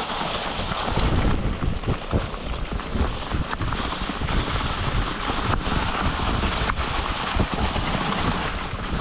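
Wind buffeting the microphone of a mountain bike on a fast descent, over a steady rumble of tyres rolling through dry fallen leaves on a dirt trail, with scattered clicks and knocks of the bike rattling over bumps.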